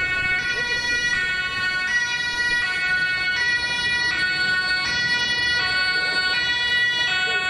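German fire engine's two-tone siren (Martinshorn) sounding on an emergency run, alternating steadily between a high and a low tone about every three-quarters of a second.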